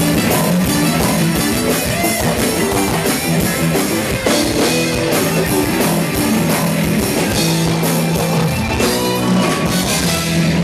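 Live axé band playing an instrumental passage with no singing: drum kit, a row of percussion drums and guitar.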